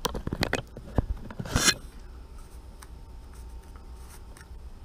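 Close handling noise as a handheld camera is moved about: a few sharp knocks and a short rustling scrape in the first two seconds. After that, a quiet steady hum with a few faint ticks.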